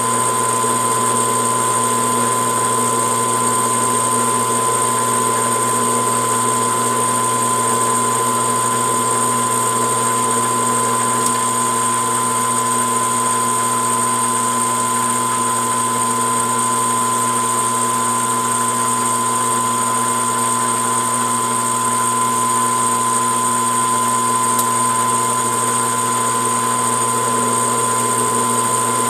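Metal lathe running steadily, its motor and gear train giving a constant whine, during single-point threading of a rifle barrel's muzzle.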